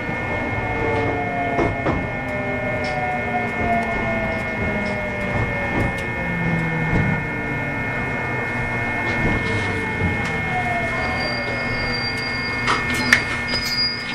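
JR West 521 series electric train with a Toshiba IGBT VVVF inverter, heard from inside the car as it slows: the motor and inverter whine falls steadily in pitch under braking, over steady high inverter tones and the click of rail joints.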